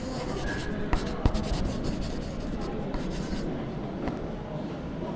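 Pen scratching across paper in quick strokes with small ticks, as in handwriting, stopping about three and a half seconds in.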